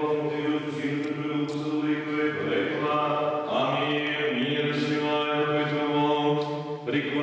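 Orthodox liturgical chanting, sung on long held notes that shift pitch twice, with a brief break about two and a half seconds in.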